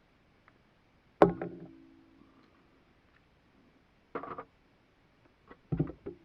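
Workbench handling noise while an angle grinder is being repaired: one sharp knock about a second in that rings on briefly, then short clusters of clattering knocks later on.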